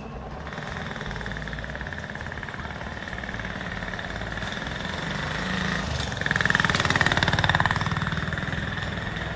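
Bicycle rigged to imitate a Royal Enfield Bullet motorcycle, giving a fast, steady motorcycle-like rattle as it is ridden. It grows louder as it passes close about six to eight seconds in, then fades a little.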